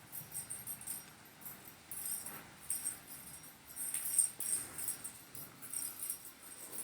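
A cat's small toy ball jingling and rattling in irregular bursts as the cat bats it and it rolls about.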